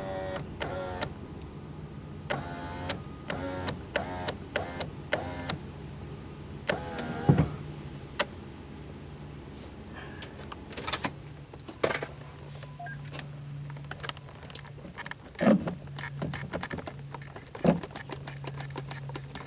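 Power window motor in a 2008 Subaru Outback's door running in stretches, a steady low hum with short breaks, as the glass is raised with the inner trim off. Sharp metallic clicks and clinks from tools and loose door parts sound over it.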